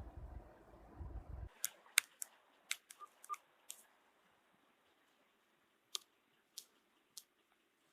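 Faint, scattered sharp clicks, about a dozen spaced irregularly, most in a cluster between about one and a half and four seconds in, with three more later on.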